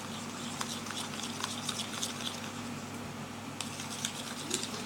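Slime being mixed as the activator sets it: irregular, quick, sticky clicks and crackles.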